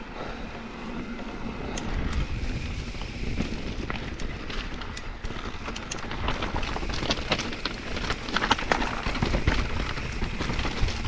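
Electric mountain bike rolling down a trail of loose rock: the tyres crunch over stones and the bike rattles, with many sharp clicks and knocks that thicken in the middle and later part. Wind rumbles on the microphone underneath.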